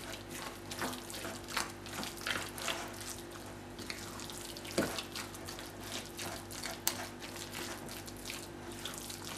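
Silicone spatula stirring a wet minced-meat, onion, tomato and olive-oil filling in a glass bowl: irregular squelching with light clicks of the spatula against the glass, over a faint steady hum.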